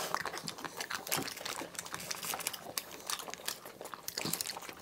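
Close, wet eating sounds of people eating melting ice cream: scattered lip smacks, slurps and small clicks, with light crinkling of a wrapper.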